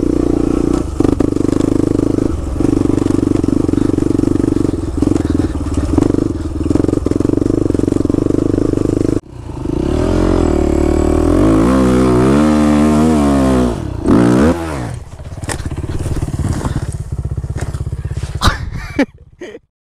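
Quad (ATV) engine running steadily at a constant pace for about nine seconds; then a cut to an off-road dirt bike whose engine revs up and down several times, before settling and cutting off just before the end.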